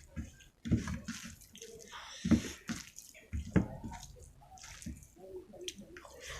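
Close-up wet eating sounds from rice and gravy being eaten: irregular squelches and slurps, the loudest a little over two seconds in and again about three and a half seconds in.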